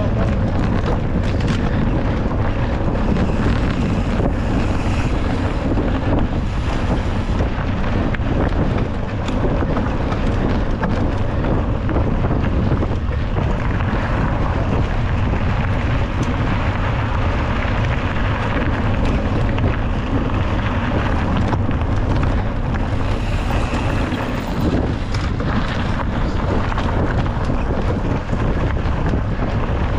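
Loud, steady wind buffeting the microphone of a POV camera on a cross-country mountain bike ridden at race pace, over the rushing noise of the bike rolling over the trail, with scattered sharp knocks.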